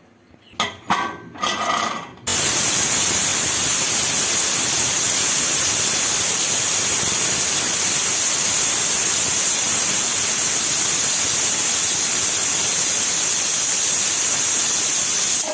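A few clicks and knocks, then a stovetop pressure cooker whistling: a loud, steady hiss of steam jetting from the weight valve on its lid, which cuts off abruptly. The hiss is the cooker at full pressure, whistling as the rice cooks.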